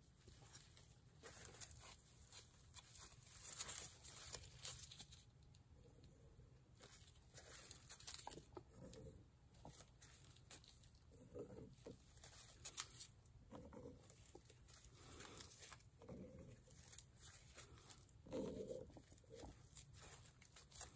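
Near silence with faint scattered rustles and light ticks, like a plastic glove and a small tool handling a wet painted canvas.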